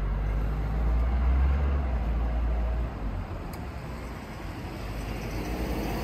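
Road traffic noise from a city street, with a low rumble that is loudest in the first three seconds and then eases to a steadier hiss.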